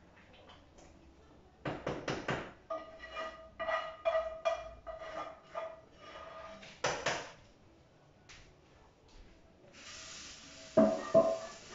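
A metal spoon stirring and knocking against a stainless steel cooking pot, the pot ringing with each stroke, and the pot lid clattering about seven seconds in. Near the end a steady hiss of running tap water starts, with a couple of loud clanks of a utensil.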